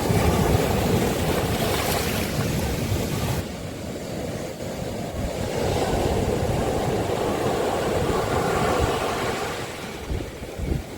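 Sea waves washing onto a beach, in two surges: the first falls away about three seconds in, and the second builds and fades near the end. Wind rumbles on the microphone underneath.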